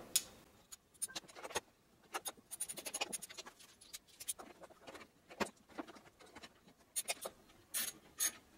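Socket and hand ratchet tightening valve-cover bolts by hand: faint, irregular light metal clicks and ticks, with a quicker run of clicks a couple of seconds in.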